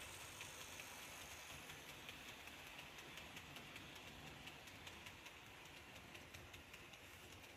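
Faint rolling clatter of Märklin H0 model passenger coaches running along the track, with rapid irregular small clicks of the wheels over the rails.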